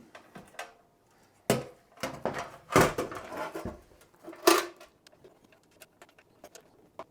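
Screws and a screwdriver handled against the metal of a PC case and power supply: light metallic clicks and clatter, with three sharper knocks.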